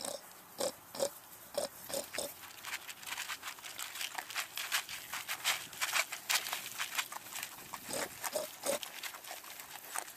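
Piglets grunting in short calls, then eating dry pellet feed from a tub with rapid, steady crunching and chomping. A few more grunts come near the end.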